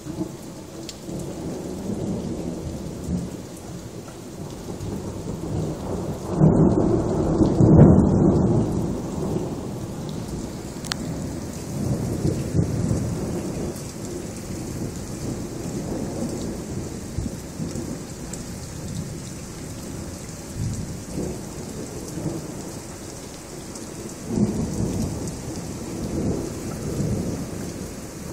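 Thunder rumbling over steady rain. The loudest roll of thunder builds about six seconds in and lasts a few seconds, with further rumbles rolling in later.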